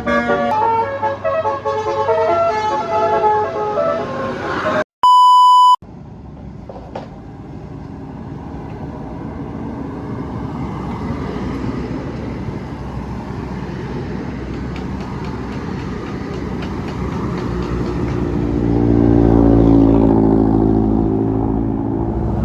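Bus telolet basuri multi-tone horn playing a quick melody of changing notes for the first few seconds, cut off by a short steady electronic beep. Then a vehicle engine and road rumble slowly builds, with a low engine drone loudest near the end.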